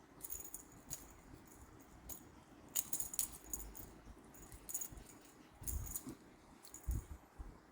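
Light metallic jingling in short, scattered bursts, like a small bell or tag being shaken, with a few soft thumps in the second half.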